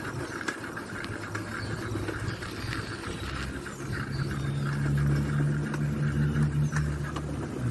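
Motor vehicle engine running with road noise while travelling slowly; the low engine hum grows louder about four seconds in, with scattered light clicks.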